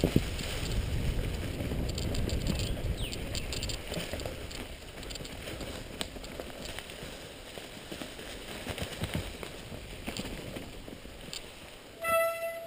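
Mountain bike rolling fast over dry leaf litter on forest singletrack: tyres crunching through leaves, with chain and frame rattles and sharp knocks over roots and bumps. A short steady squeal sounds near the end.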